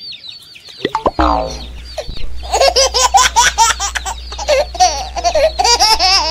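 Chicks peeping in short falling chirps, then a sharp knock about a second in. From about two and a half seconds in, a dense, rapid run of high calls and clicks is the loudest sound, over a steady low hum.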